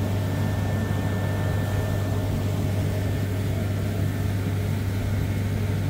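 Old working rice mill's machinery running with a steady low hum and an even mechanical rumble.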